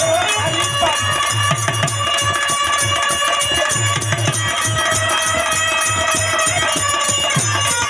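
Instrumental interlude of birha folk music: a repeating low drum pattern under long held melody notes, with light jingling percussion.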